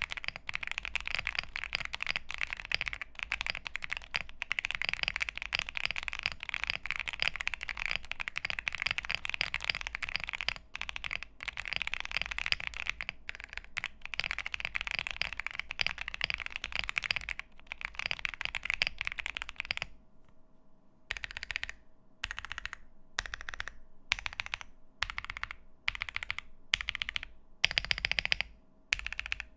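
Mechanical keyboard typing: a Monsgeek M1 aluminium-case board with lubed Akko V3 Cream Blue tactile switches on a polycarbonate plate, with PBT keycaps. Fast, continuous typing gives way about twenty seconds in to slower, separate key presses about every half second.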